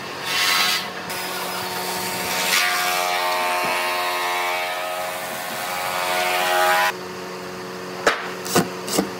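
Cordless drill driving screws into a wooden tabletop: the motor's whine rises in pitch over several seconds and then stops abruptly, followed by a few sharp knocks near the end.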